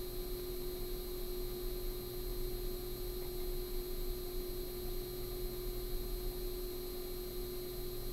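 Steady background hum and hiss with a constant mid-pitched tone underneath: room tone, with no events.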